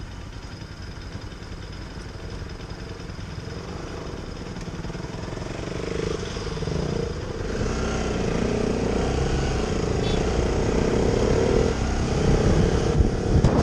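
Motorcycle engines running at low speed with a low rumble, growing louder from about six seconds in as bikes pull in close.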